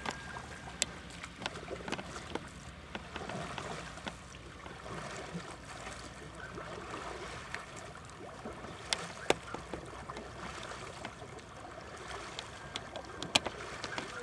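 Canoe under paddle: water swishing and splashing along the paddles and hull, with occasional sharp knocks and clicks against the boat.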